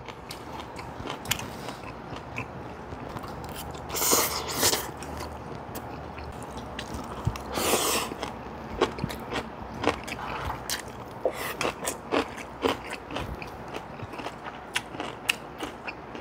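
People chewing and crunching Korean side dishes such as kimchi and pickles, with many short clicks scattered throughout and two longer, louder noisy bursts about 4 and 8 seconds in.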